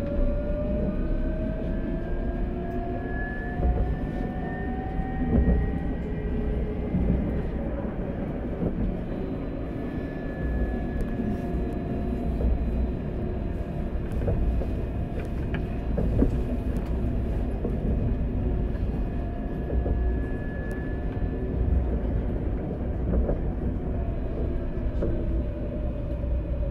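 Alstom Citadis tram running on its rails: a steady rumble of wheels on track with scattered clicks. Over it the electric traction motors whine, rising in pitch for the first several seconds as the tram accelerates, then holding steady and easing down near the end.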